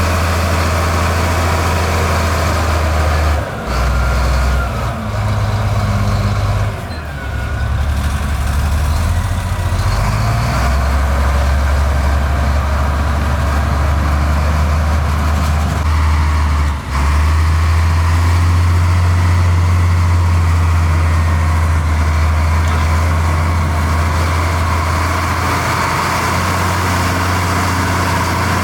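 Heavy diesel engine of a dump truck or bulldozer running with a deep, steady rumble. Its pitch and level jump abruptly a few times in the first half, with a short drop about 17 seconds in.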